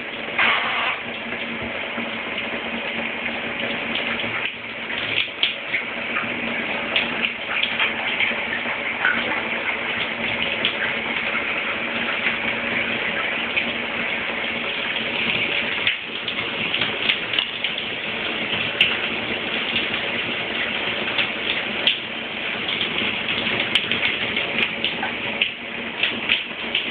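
Shower running: a steady spray of water falling, with scattered sharper spatters.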